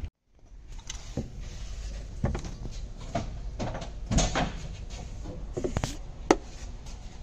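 About half a dozen irregular knocks and clunks, the sharpest about six seconds in, over a low steady rumble. They come from movement and handling under a heavy truck.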